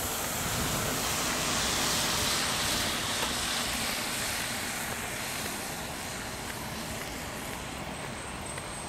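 Road traffic on a wet road: a steady hiss of tyres on wet asphalt, swelling as vehicles pass about two seconds in. A faint high whine joins near the end.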